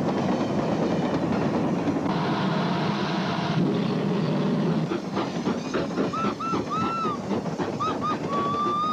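Steam locomotive running, its rumbling exhaust steady. From about two-thirds of the way in, its steam whistle gives a string of short toots, then a long blast near the end.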